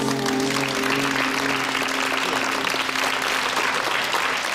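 Studio audience applauding as the band's final held note rings out and fades away about four seconds in.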